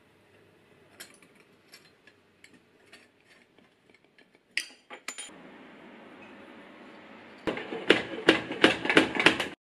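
A spoon knocking and clinking against a glass jar over and over near the end, with a jar of blueberry jam being stirred. Before that come faint small clicks and crackles as a thin clear sheet is peeled off the glass top of a small brass-framed glass box.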